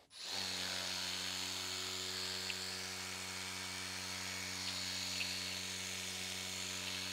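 Worx Hydroshot Nitro 56-bar cordless pressure washer running: the pump motor's steady hum with the hiss of water spraying from a wheeled water-broom attachment turned over to spray upward. It starts just after the beginning and holds steady throughout.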